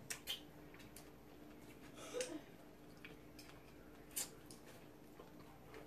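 Quiet eating sounds at a table: chewing and a few short clicks of a fork against a plate, the clearest about two seconds in and about four seconds in, over a faint steady hum.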